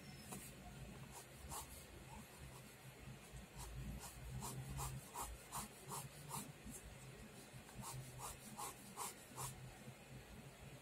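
Pen scratching across sketch paper in quick strokes, a run of short scratches about three a second, with a brief pause midway.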